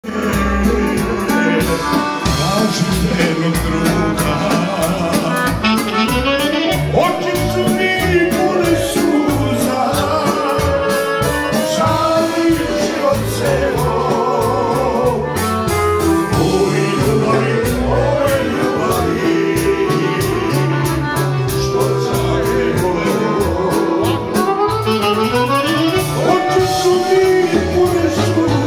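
Live Balkan folk band music led by an accordion, with a singer and a steady bass beat.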